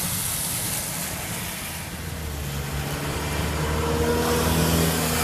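Steady hiss of rain and wind, with a motor vehicle's engine hum coming in about two seconds in and growing louder toward the end.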